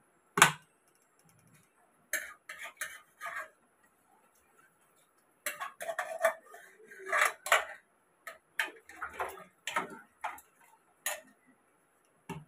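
A steel ladle clinking and scraping against the sides of an aluminium pressure cooker as the rice, dal and water inside are stirred: irregular clanks in small clusters, the sharpest about half a second in.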